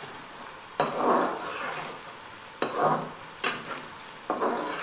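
Cut okra deep-frying in oil in a metal kadai, sizzling steadily, while a slotted metal spoon stirs it. Four sudden strokes of the spoon each stir up a louder rush of sizzle.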